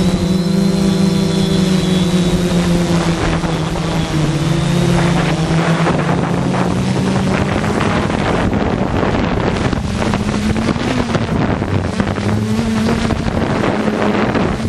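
ZionEX460 multirotor drone's motors and propellers humming steadily, their pitch dipping and rising again as it holds against strong gusts, with wind buffeting the microphone.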